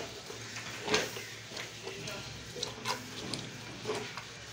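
Wet slaps and thumps of hands punching and pulling the hide off a hanging goat carcass during skinning, a few sharp hits with the loudest about a second in.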